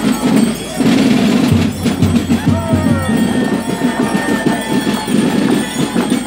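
Marching-society band music played in the street: a steady drum beat with a high melody line, over crowd noise.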